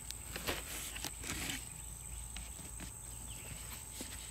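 Cardboard shipping box being handled, with a few faint knocks and a brief rustle about a second and a half in. A steady high thin tone lies behind.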